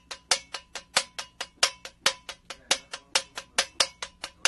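Soundcheck of a small percussion piece: sharp drumstick strikes at about five a second, each with a brief ringing tone, a sound close to a cowbell.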